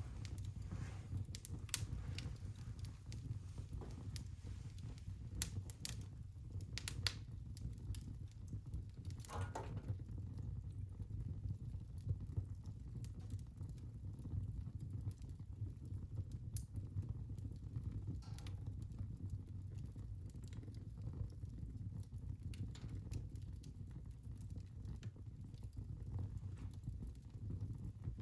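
Wood fire burning in a fireplace: a steady low rumble of flames with scattered sharp crackles and pops, and one slightly longer pop about nine seconds in.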